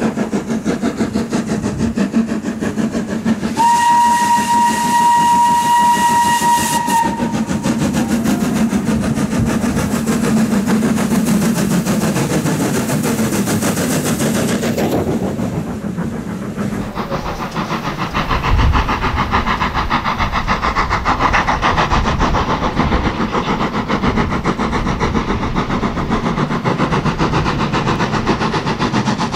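Steam locomotive working a train past at close range, giving one long steam-whistle blast that holds a single steady note for about three seconds, a few seconds in. After a cut about halfway, the sound changes to a steadier rhythmic rumble, with a low thud just after the change.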